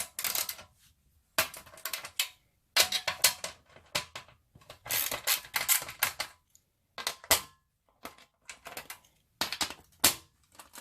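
A number 9 wrench working nuts loose on a panel: irregular bursts of quick clicking and rattling, in several groups with short pauses between them.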